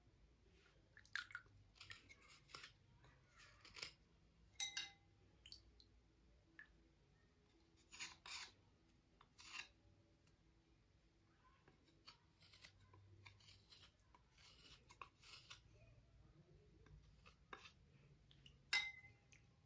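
Slate cubes being cleaned: faint, short scratchy strokes in irregular bursts, with two sharper clicks, one about four and a half seconds in and one near the end.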